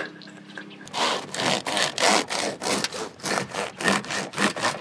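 Serrated bread knife sawing back and forth through a freshly baked loaf of pot bread, in quick strokes about four a second, starting about a second in.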